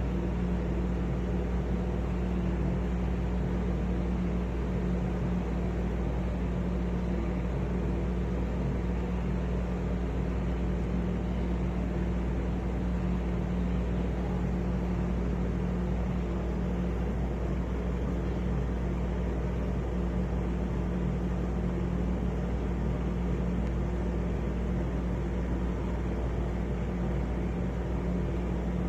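Arlec Style 3 exhaust fan running with a steady low hum and a rough, even drone, the noise of its bad bearings.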